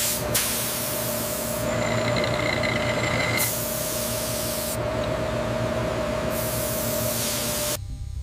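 Deep-hole drill boring a chrome-moly steel barrel blank under coolant: a steady hissing spray over a machine hum with a constant mid-pitched tone. The highest part of the hiss drops back twice, and the sound cuts off suddenly near the end.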